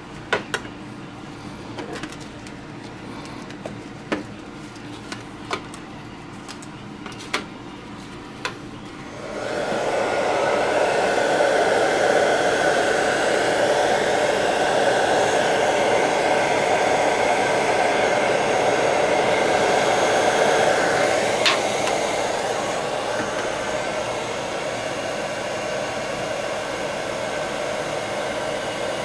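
A few sharp clicks and taps of a spatula against an aluminium pie tin. About nine seconds in, an electric hot-air blower switches on and runs with a steady whir, warming epoxy bedding compound in the tin. It drops a little in level a little past twenty seconds.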